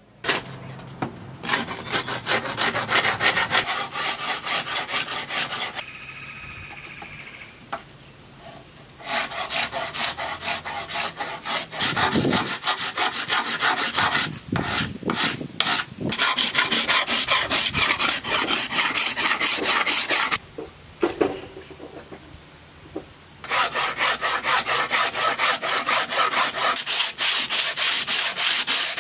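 Bamboo bow limbs being rasped, filed and sanded: quick, repeated back-and-forth scraping strokes. They come in three runs, with pauses about six seconds in and about twenty seconds in.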